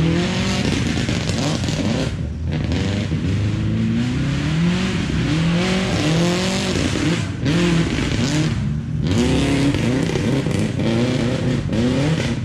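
Rally car engine revving hard. Its pitch climbs and drops back about once a second, with brief lifts of the throttle, as the car is driven through the gears.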